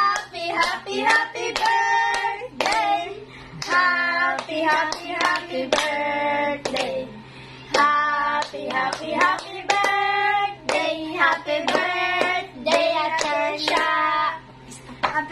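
A small group of women and a girl singing together while clapping their hands along with the song.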